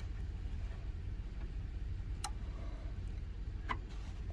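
Two light clicks over a low steady hum as a small emergency car key is set into a key-cutting machine's clamp.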